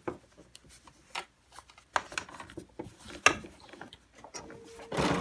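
Fabric and binding being handled at the sewing table: rubbing with scattered small clicks and taps, and a sharper knock about three seconds in. Near the end a BERNINA 770 sewing machine starts stitching with a steady run.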